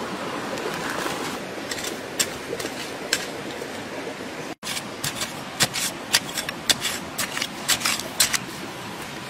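Machete blade chopping into the dirt around a cassava root: a few sharp strikes, then a quick run of them, several a second, about halfway through. A steady rushing hiss runs underneath.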